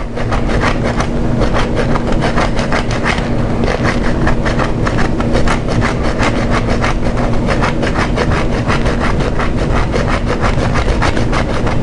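A block of Parmesan cheese rasped back and forth against a fine stainless-steel stick grater, in quick, even scraping strokes that keep on without a break.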